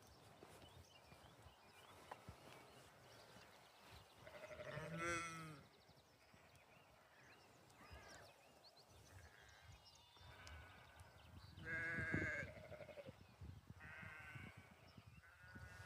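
Lambs bleating: a series of wavering calls, with two loud bleats about five and twelve seconds in and several fainter ones between and after.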